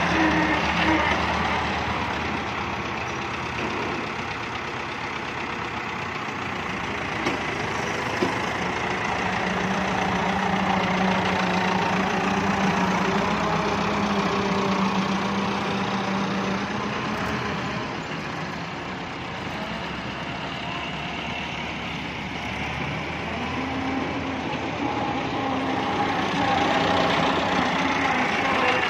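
Massey Ferguson 385 tractor's four-cylinder diesel engine running under load as it pulls a tine cultivator through soil. It swells and fades in loudness as the tractor passes close by and moves off.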